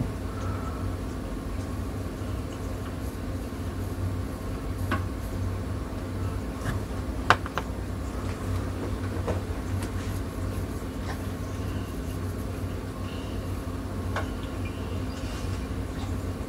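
Steady low background hum with a few faint, light clicks from a painting stylus and hands handling the carving and the plastic paint palette. The clearest click comes about seven seconds in.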